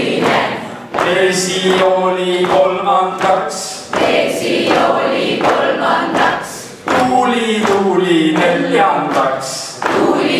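A small group of men's and women's voices singing together in held phrases of about three seconds each, the last phrase sliding down in pitch.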